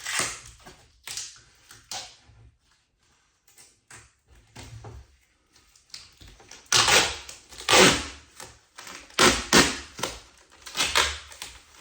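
Blue protective plastic film on a cabinet door being peeled back and crinkled, in a string of irregular crackling bursts that grow louder in the second half.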